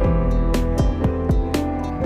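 Background music: gentle instrumental track with plucked guitar-like notes over a steady beat.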